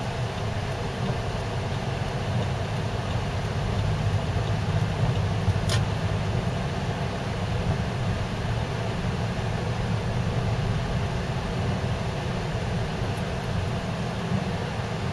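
Steady low rumble of a car driving, heard from inside the cabin, with tyre noise on the wet, slushy road. A single short high click comes about six seconds in.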